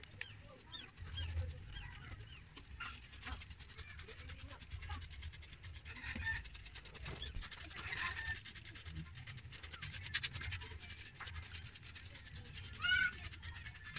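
Hand-pump pressure sprayer hissing as it sprays liquid over engine parts in a wet engine bay, in uneven spurts, strongest about halfway through.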